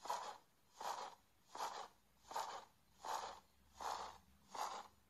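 Augmented-reality phoenix's wingbeat sound effect: a whooshing flap repeating about every three-quarters of a second.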